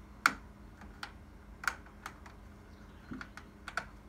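A cat's claws catching on a patio door's window screen as she climbs: a string of irregular sharp clicks, the loudest about a quarter second in.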